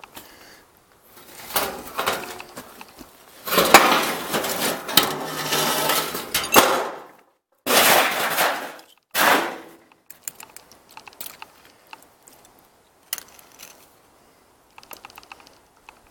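Scraping and clanking on the metal tongue of an old travel trailer, in several loud rough bursts over the first half, then scattered light clicks and taps.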